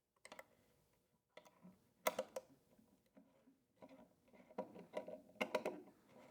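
Faint scattered clicks and light taps of metal tweezers and a small washer being worked onto a bolt in a tight space, a few at a time, with a cluster about two seconds in and more in the second half.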